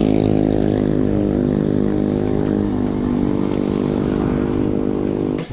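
A motor vehicle engine running steadily, its pitch sagging slightly, then cut off abruptly near the end.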